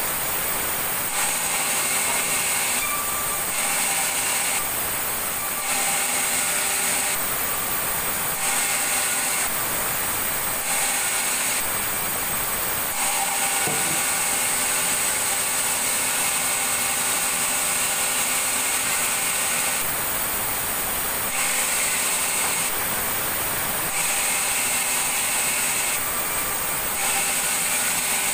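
A power saw cutting wood: steady, hissy machine noise with faint hum tones, switching abruptly in level and tone every second or two.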